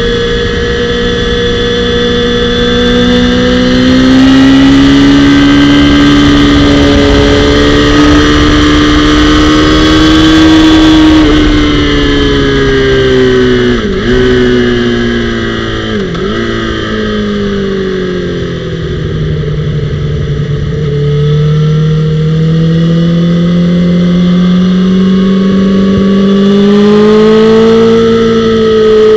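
Onboard sound of a Honda CBR1000RR (SC59) inline-four at speed on track, with wind rushing over the bike. The engine note rises and falls with throttle and gear changes: it dips sharply twice in the middle, drops away as the bike slows, then climbs again near the end.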